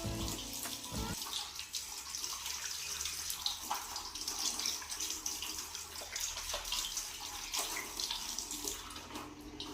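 Water running from a tap into a sink, with irregular splashing, after a short stretch of music ends about a second in.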